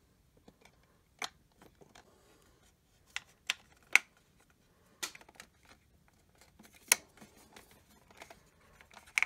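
Quiet, irregular sharp clicks and snaps of hard plastic as the avionic blister pieces are pressed onto the blue plastic hull of a 1991 Hasbro Toad Croaker toy spaceship, with faint handling rustle between.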